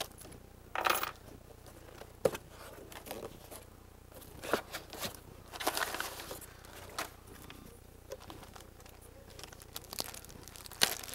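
Cardboard shipping box being opened and crumpled brown packing paper rustling as it is pulled out, in scattered bursts with a few sharp clicks, then a plastic sleeve crinkling near the end.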